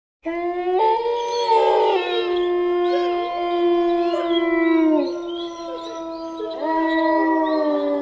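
Several wolves howling together, long held howls overlapping in a chorus; one howl slides down and fades about five seconds in, and another rises near seven seconds.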